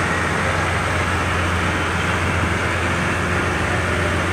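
Motorised jangar ferry under way: its engine running with a steady low hum, under an even wash of water and rushing-air noise.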